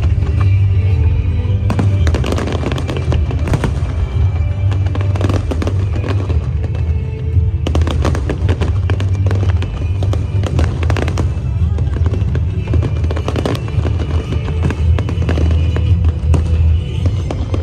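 Aerial fireworks bursting and crackling in rapid, dense volleys over loud music with a heavy bass.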